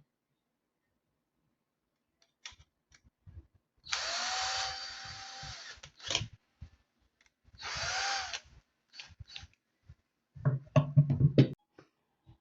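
A small electric motor runs briefly twice, spinning up and winding down. Clicks and handling knocks come between the runs, and a cluster of louder knocks follows near the end.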